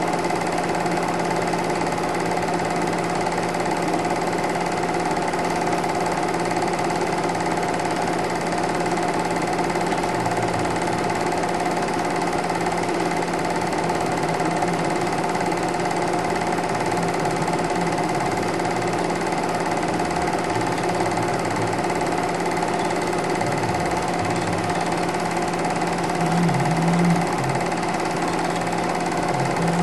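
Super 8 film projector running: a steady mechanical whir of the motor and film transport, unchanging in pitch and level.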